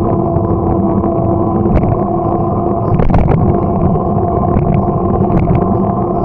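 Steady riding noise from a bicycle on the move: a constant hum with a few short rattles or knocks, the loudest about three seconds in.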